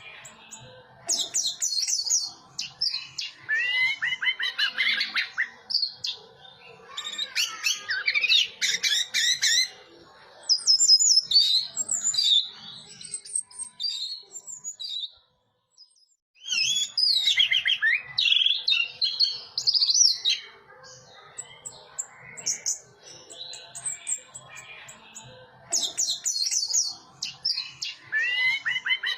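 Orange-headed thrush singing: long runs of rapid, varied warbling and chirping phrases, each a few seconds long, broken by short pauses.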